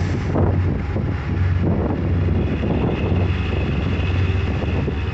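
Bus engine running with a steady low drone and road noise, heard from inside the moving bus.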